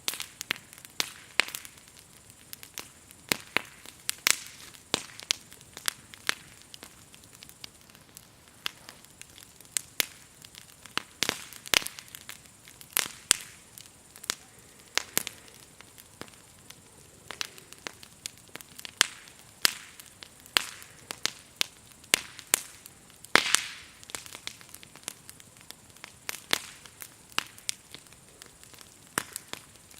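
Burning firewood crackling and popping in irregular sharp snaps, with one louder pop about two-thirds of the way through. A faint steady high chirring of insects runs underneath.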